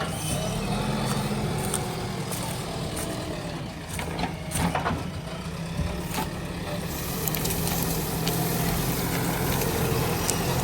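JCB 3DX backhoe loader's diesel engine running steadily, with a few sharp cracks and knocks, most of them about four to five seconds in.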